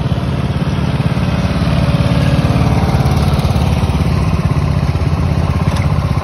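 Small engine of a riding lawn tractor running steadily with a rapid, even firing pulse as the tractor drives close past, getting a little louder about two seconds in.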